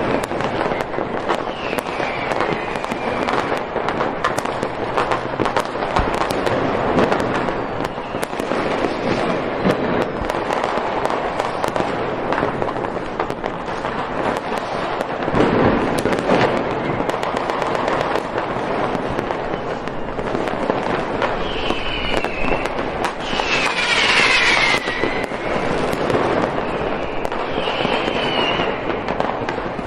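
Continuous fireworks barrage: dense, overlapping crackling bangs with no break. A few rising and falling whistles come through near the end.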